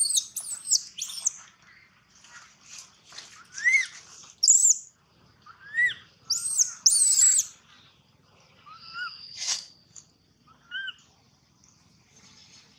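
Baby macaque crying: a run of short, high-pitched arching squeals with shriller screams among them, loudest about four and a half seconds in and again around six to seven seconds.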